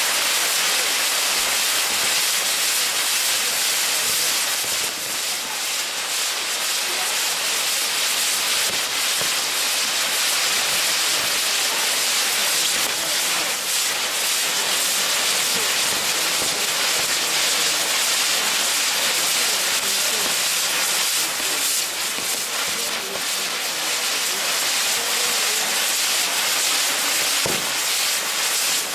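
Maltese ground fireworks (nar tal-art): a spinning set piece of fountains burning with a steady loud hiss, with fine crackling all through it.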